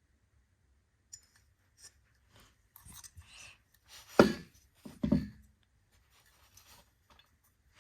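Handling noises: scattered light clicks and rustles, then two heavy thumps about a second apart near the middle.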